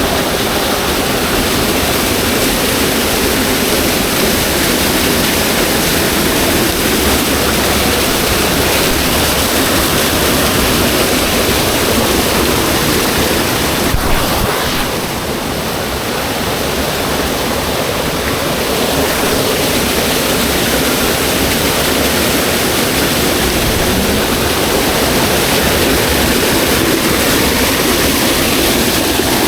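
Steady, loud rush of water, an even roar with no distinct splashes, easing slightly for a few seconds around the middle.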